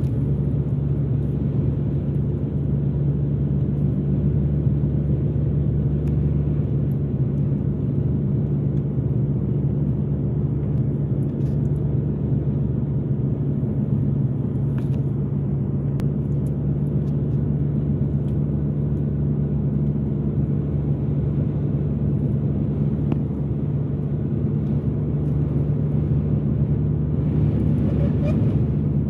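Car driving steadily along a paved road: a steady low drone of engine and tyre noise.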